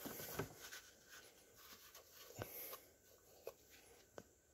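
Near silence, with faint rubbing and a few light ticks from a small garden-tractor wheel being handled and turned on the workbench.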